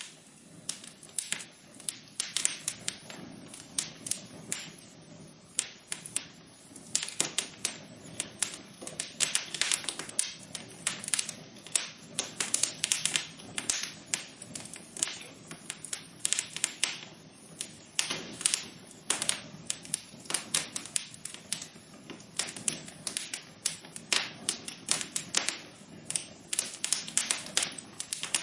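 Wood fire in a fireplace crackling: quick irregular pops and snaps, many each second, over a soft steady hiss.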